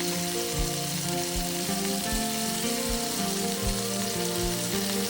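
Food sizzling in a hot pan, a steady hiss, under background music with held notes and a soft beat.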